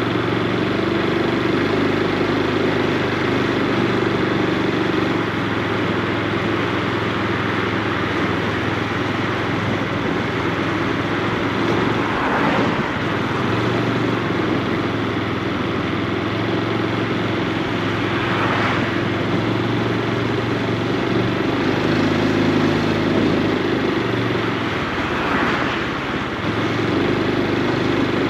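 Honda Super Cub C125's single-cylinder engine and exhaust running steadily under way, heard from the bike itself. The engine note shifts in pitch a few times as the speed changes.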